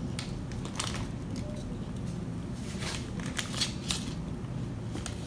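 Thin plastic toy packets crinkling as they are squeezed and handled, in short scattered rustles.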